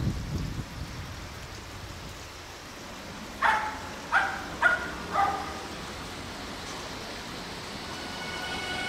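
Electric train running slowly past on the tracks, its low rumble fading in the first second. About three and a half seconds in, an animal gives four short calls about half a second apart, louder than the train.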